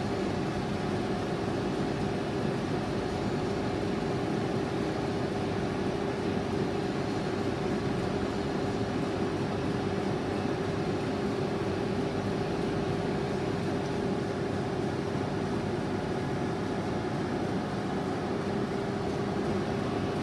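Large twin-column vertical turning lathe running under power: a steady mechanical hum with a constant tone and no change in speed.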